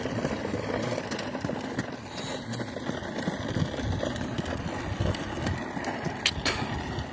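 Plastic toy dump truck's wheels rolling over rough asphalt as it is pushed by hand, a steady rolling rattle, with two sharp clicks about six seconds in.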